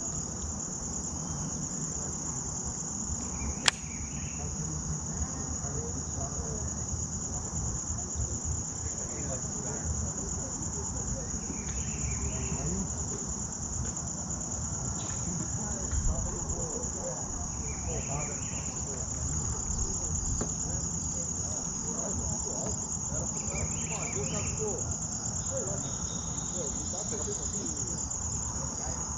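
Steady high-pitched chorus of insects, with short chirping calls recurring every six seconds or so over it. A single sharp click comes about four seconds in.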